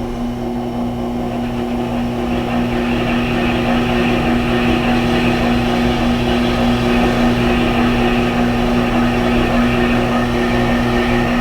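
Tormek T-8 sharpener's electric motor running with a steady hum while a Leatherman blade is honed on its leather wheel, with a light hiss that builds from about two seconds in.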